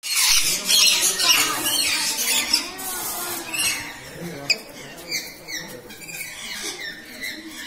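Rainbow lorikeets calling at close range: harsh screeching chatter for the first few seconds, then a run of short falling chirps about two a second. A single sharp click about four and a half seconds in.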